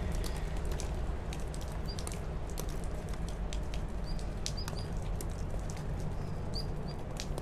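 Bonsai scissors snipping dracaena roots: a run of short, sharp clicks. A few short bird chirps come through now and then over a steady low hum.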